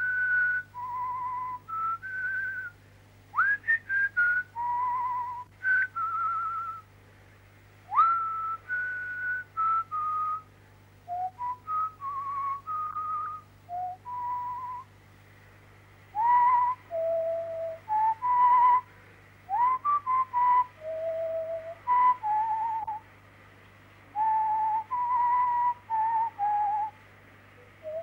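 A person whistling a slow tune in held notes with a slight vibrato, some of them slid up into from below.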